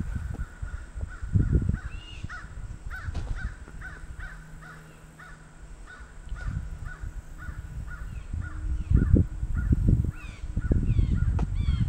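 Birds calling noisily in a rapid string of short, repeated calls, joined near the end by descending squawks. The loudest moments are bursts of close rustling about one and a half seconds in and again in the last few seconds.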